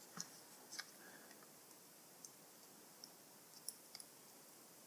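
Near silence with a few faint, scattered clicks from small parts being handled while a plug fuse is set up for testing.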